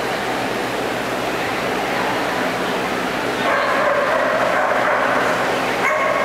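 A dog barking and giving long, drawn-out calls, which come in more strongly from about halfway through, over a steady haze of echoing arena noise.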